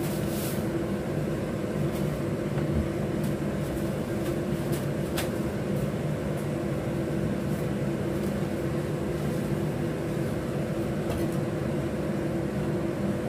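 Steady low mechanical hum of a running motor, with a single faint click about five seconds in.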